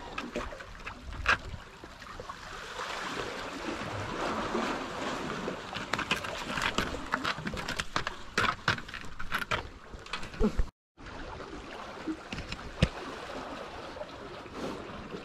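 Water washing against shoreline rocks, with scattered sharp knocks and scrapes that come thickest in the middle. The sound cuts out completely for a moment about eleven seconds in.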